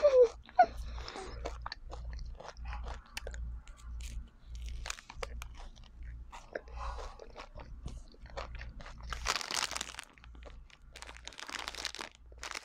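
Close-miked crunching and chewing as a person eats a chocolate-coated ice cream bar and chocolate, the hard chocolate shell cracking between the teeth in many small crisp clicks. Two louder bursts of crunching come near the end.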